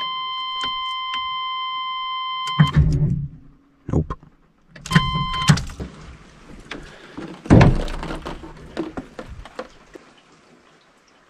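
A Chevy pickup's dashboard warning tone sounds steadily and cuts off with a heavy thud about two and a half seconds in, then comes back for a moment near the middle. Heavy thumps and clunks of the truck's door and hood follow, the loudest about three quarters of the way through, then lighter clicks and rattles.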